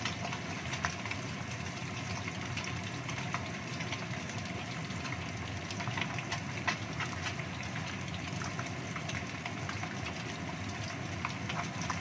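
Salmon pieces frying in oil in a non-stick wok: steady sizzling with scattered small pops and crackles, over a steady low rumble.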